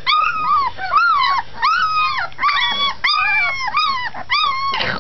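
Newborn Great Pyrenees puppies, about two and a half weeks old, crying: a steady string of short, high-pitched whining cries, each rising and falling in pitch, about three a second.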